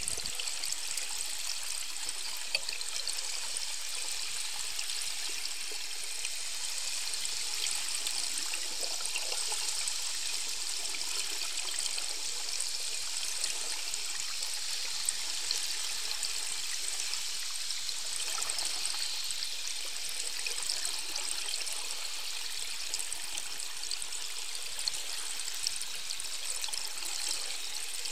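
Steady hiss of river water heard through an underwater microphone, with a fine crackle in it and a few small ticks.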